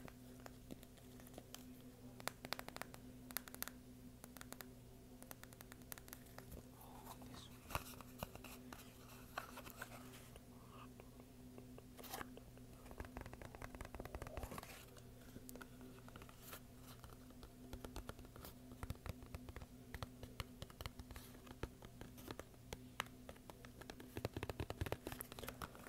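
Fingers and nails tapping and scratching on a small hard box: quick, irregular clicks and scrapes, over a steady low hum.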